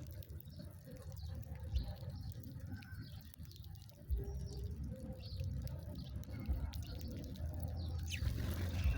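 Small birds chirping now and then, short high calls with a falling call near the end, over a steady low rumble and scattered short clicks.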